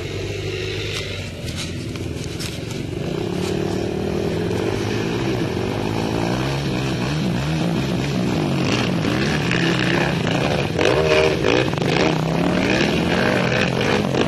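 Several quad-bike (ATV) engines racing round a dirt track at a distance, their overlapping pitches rising and falling as the riders accelerate and ease off. A few sharp clicks come in the second half.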